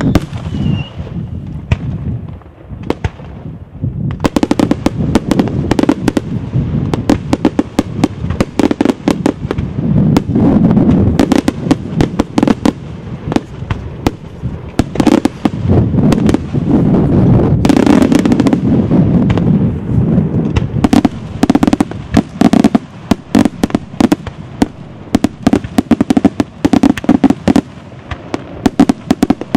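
Daytime aerial fireworks bursting in rapid succession: a dense, almost continuous string of sharp bangs and crackles over a low rumble. The bangs thin out briefly a couple of seconds in, and a short falling whistle sounds right at the start.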